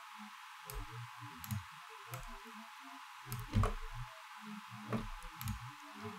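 Computer mouse buttons clicking now and then, faint, with soft low thuds between the clicks and one louder click about halfway through.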